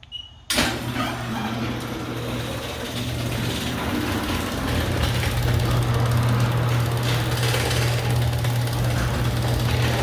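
All-O-Matic chain-drive garage door opener starting up about half a second in and running steadily, its electric motor humming as it drives the belt, pulley and chain.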